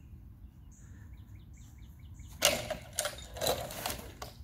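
Wooden whipper trebuchet firing with its 30-pound counterweight: a sudden loud burst of knocking and rattling about two and a half seconds in as the arm whips around, with two more surges of clatter over the next one and a half seconds.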